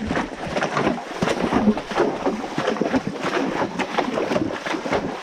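Horses' hooves splashing and sloshing through a shallow stream, an irregular run of splashes.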